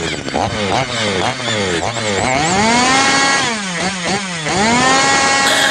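Stihl two-stroke chainsaw engine being revved hard: a run of quick throttle blips, then twice pulled up to full revs, held for about a second and let fall back.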